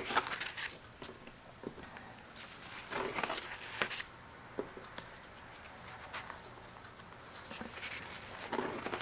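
Paper pages of a planner being handled and turned: soft rustles and light ticks scattered through, the loudest around three and four seconds in.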